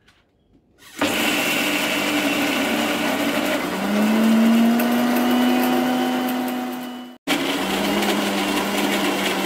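Electric mixer-grinder (mixie) motor whirring as it grinds soaked chana dal in its steel jar. It starts about a second in, stops for a split second near the end, and starts again at once.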